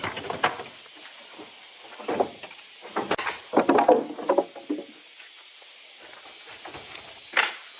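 Irregular knocks and clattering, a dense cluster of them from about two to four and a half seconds in and one more near the end.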